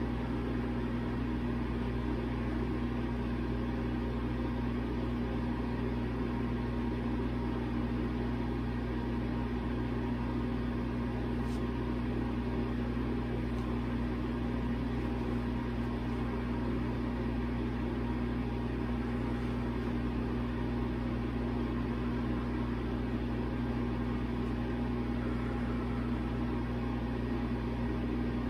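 Steady low mechanical hum with a fixed low tone, like a fan or other running appliance in the room.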